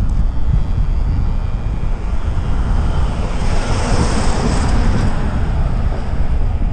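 Wind buffeting the microphone of a moving rider, a steady low rumble, with a motorhome passing close by: its tyre and engine noise swells about three seconds in and fades as it draws ahead.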